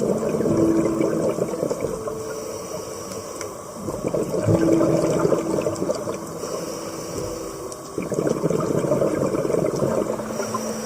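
Rushing, churning water, swelling three times.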